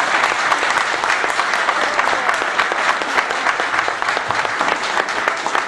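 Audience applauding, a dense run of clapping that slowly dies down.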